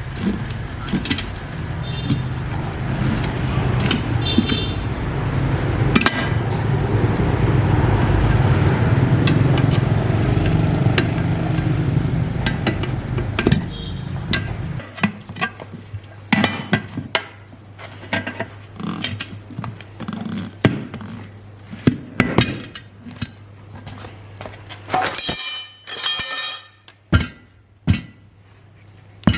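An engine runs steadily, growing louder, then drops away about fifteen seconds in. After that come repeated sharp hammer strikes and clinks on metal, several in quick succession near the end.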